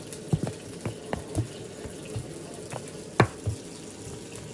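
A metal spoon stirring and scraping flour in a plastic bowl, giving scattered light taps and one sharper clack about three seconds in, over a steady hiss.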